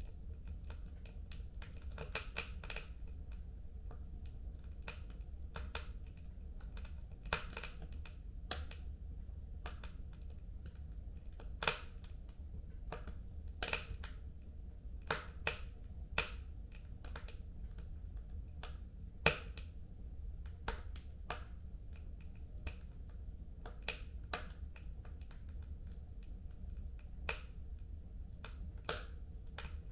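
Wood fire burning in a home fireplace, crackling and popping at irregular intervals, with a few sharper, louder pops, over a low steady rumble.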